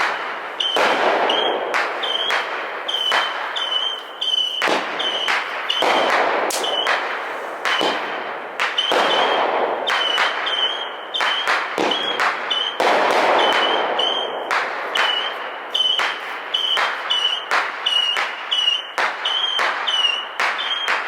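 Consumer fireworks going off in a rapid, irregular string of bangs, each followed by crackling, with a steady high-pitched tone underneath.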